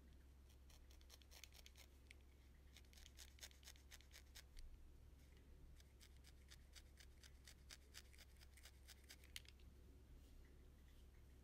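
Faint, crisp ticks of a felting needle repeatedly stabbing through wool into the felting mat, several pokes a second in irregular runs, as a strip of black wool is needled on as a tiger stripe; the pokes stop about two seconds before the end. A steady low hum underneath.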